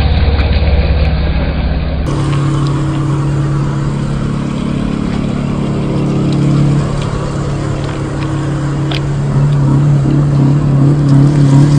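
Drivetrain of a 1/10-scale RC crawler, its 540-size 27-turn electric motor and gears, whining steadily as it drives. The pitch holds level, it eases off a little past halfway, and it grows louder again near the end.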